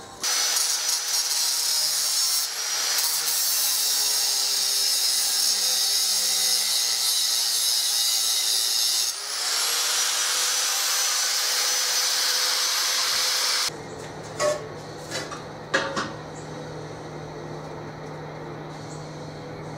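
A power tool grinding metal: a loud, steady, high hiss that dips briefly partway through and spins back up, running for about thirteen seconds before stopping. After it, a low steady hum remains, with a few sharp metal knocks.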